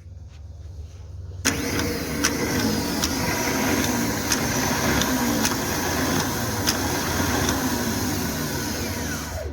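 JCB 3DX backhoe loader's diesel engine running. About a second and a half in it turns suddenly louder and harsher, with light ticks about once a second.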